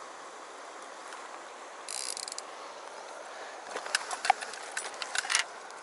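Fly reel's click-and-pawl ratchet: a short buzz about two seconds in, then a string of irregular clicks through the second half, over a steady stream.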